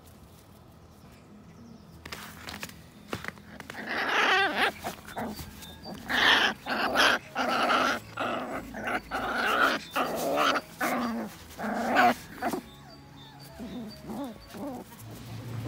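Young puppies growling and barking: a quick run of about ten short, loud calls starting about four seconds in, trailing off into fainter sounds near the end.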